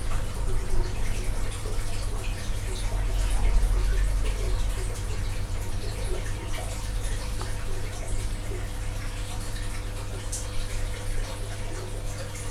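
Small electric motor of a rotating display turntable running with a steady low hum, over a faint even hiss.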